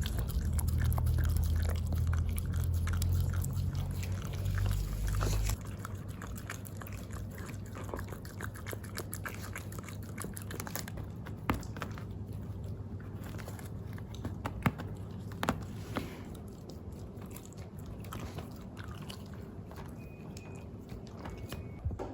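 Shiba Inu licking and smacking at a Ciao Churu paste treat squeezed from a tube, many small wet clicks and smacks. A low rumble lies under the first five seconds or so.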